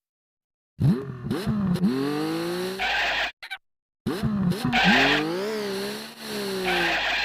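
A cartoon car sound effect: an engine revving up and down in pitch with tire squeal, played twice with a short gap between.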